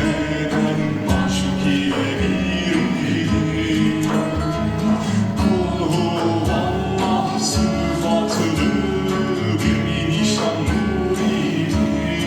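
Music: voices singing together over a plucked string instrument.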